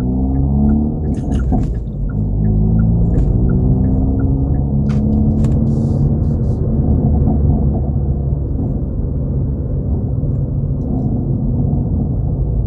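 Hyundai Veloster N's turbocharged four-cylinder engine and exhaust heard from inside the cabin while driving. The pitch climbs in the first second, dips briefly about two seconds in, then holds fairly steady. A light regular ticking runs through the first few seconds.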